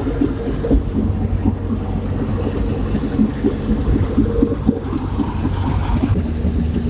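VAZ-2101 (Zhiguli) on the move: steady engine and road noise with a run of short, light knocks, the periodic 'tuk-tuk-tuk' that grows with speed. It does not change with braking or bumps. Wheel bearings and brake pads check out fine, so the owner suspects the rear axle final drive, as if a gear tooth has broken off.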